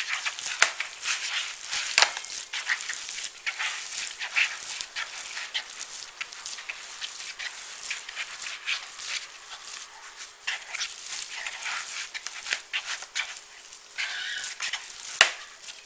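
Hands kneading a wet meatball mixture of raw ground beef, sausage, egg and crushed crackers in a bowl, making irregular wet squelching and smacking.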